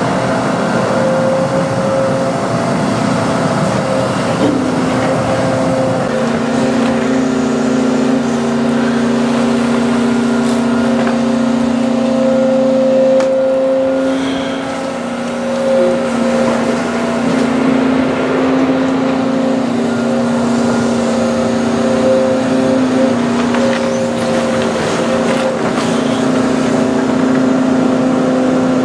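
Volvo tracked material handler working a sorting grapple: the diesel engine and hydraulic pumps run steadily under load with a held whine whose pitch steps up and down as the boom and grapple move, easing off briefly about halfway through.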